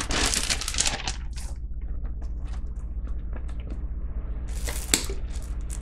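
Packaging rustling and crinkling in irregular bursts as a package is unpacked by hand, loudest in the first second and again near the end, with small clicks between, over a steady low hum.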